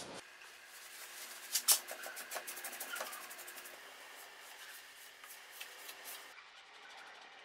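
Paintbrush bristles brushing paint onto a wooden nightstand in a series of quick, faint strokes, with one sharp tap about one and a half seconds in.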